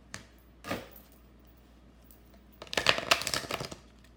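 A deck of oracle cards being handled and shuffled: a couple of light taps, then a quick burst of rapid card flutter about three seconds in.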